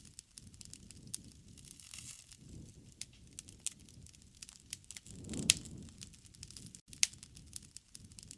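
Campfire of burning wood crackling, with sharp pops every second or so over a low rush of flame; the low sound swells and the loudest pop comes about five and a half seconds in.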